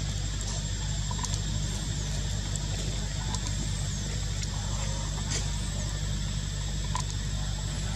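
Outdoor ambience: a steady low hum and a thin steady high whine, with a few short, high-pitched chirps scattered through it.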